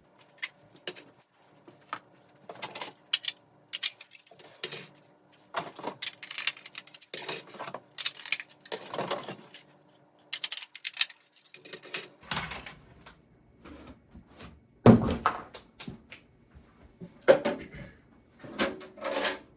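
Plastic smoke detectors and their mounting bases being handled and set down: an irregular run of clicks, rattles and knocks, with a heavier thump about 15 seconds in.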